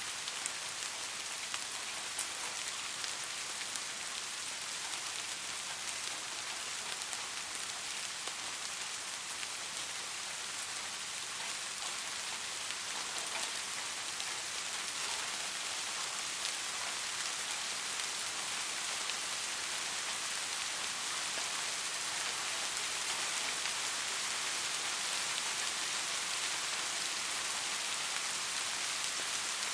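Steady rain falling, an even hiss with scattered drop ticks, getting slightly louder in the second half.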